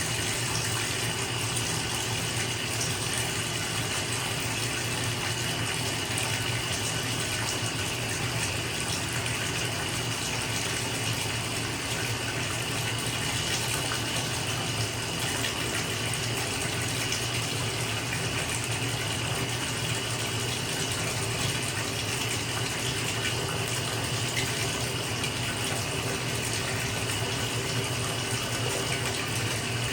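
Bathtub filling from a running tap: a steady rush of water pouring into the tub.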